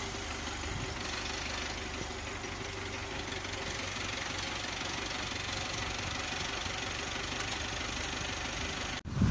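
Tractor diesel engine running steadily, driving a Calderoni FPS55 in-row rotary cultivator through its PTO shaft. The sound cuts out abruptly near the end.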